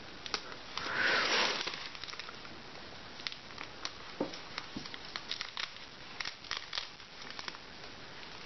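Thin protective plastic wrap being pulled off a doll, crinkling and crackling in many short clicks. A short loud rush of noise about a second in is the loudest sound.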